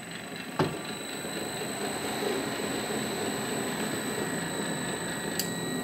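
A click shortly after the start, then the machine trainer's blower fan running steadily, a continuous rush of air pushing up the clear tube and holding the ping-pong ball afloat.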